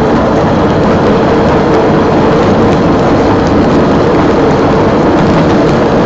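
Steady running noise of a rail vehicle travelling along the track, with a constant hum under it and no change in speed.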